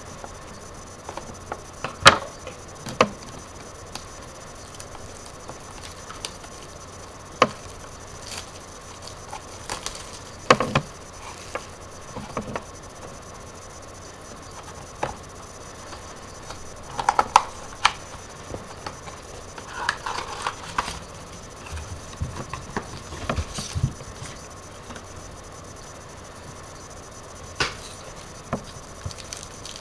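Handling noise from opening a mini box of trading cards and taking out its cards: scattered taps and clicks with a few short rustles and scrapes.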